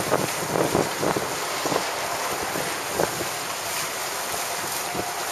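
Wind buffeting the microphone over a steady rush of water, with a few short knocks in the first two seconds.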